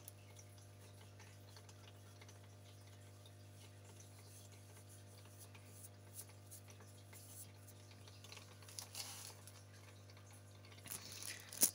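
Low steady hum of a small aquarium pump running in the worm culture container, with a few faint light ticks and a sharper click near the end as food is sprinkled by hand.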